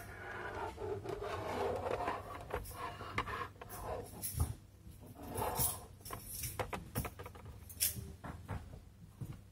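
Plastic parts of a see-through gear clock kit being handled: the coloured gears and clear case rub and scrape for the first couple of seconds, then come scattered light clicks and knocks with a few short scrapes.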